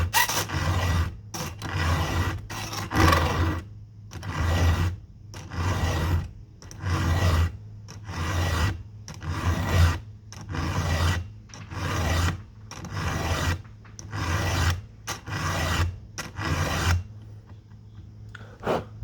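A hand file stroked across a chainsaw chain's cutters in the vise, about one scraping stroke a second, cleaning out a gullet and dressing the top plate while sharpening the chain. The strokes stop near the end.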